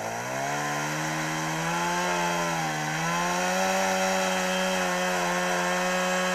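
Petrol chainsaw revved up to high speed and held there as it cuts into a log. Its pitch rises over the first second, dips briefly about three seconds in, then holds steady.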